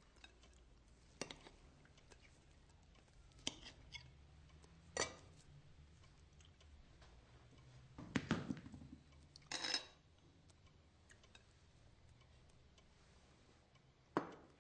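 Sparse clinks and scrapes of a table knife on a china plate as a boiled potato is cut, a handful of separate short sounds over quiet room tone. The loudest is a longer knock a little past halfway.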